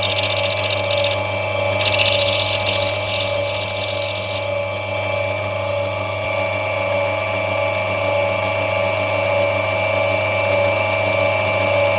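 Lapidary grinding machine running with a steady motor hum while a piece of opal is pressed against its wet spinning wheel, giving a loud grinding hiss. The hiss comes in two spells over the first four and a half seconds, broken briefly about a second in, then only the motor's hum remains.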